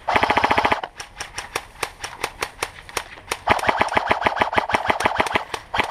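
Airsoft rifles firing on full auto: a short, loud burst of rapid clicks at the start, scattered single shots, then a longer burst from about three and a half seconds in.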